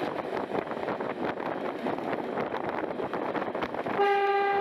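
Class 121 diesel railcar running along the line with a steady rattling, rushing noise; about four seconds in, its horn sounds one short, steady blast on a single note.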